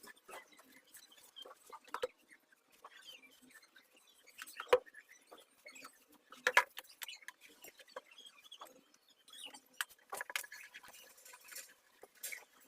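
Faint, irregular small clicks, taps and scratchy rustling, with two sharper knocks in the middle and a denser cluster of clicks near the end.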